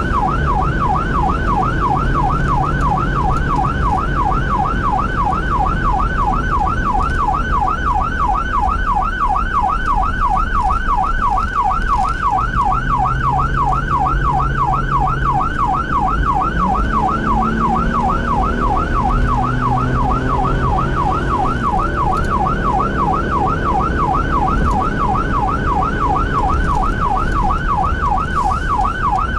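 Fire department emergency vehicle's electronic siren in yelp mode, sweeping rapidly up and down without a break, over a low engine rumble.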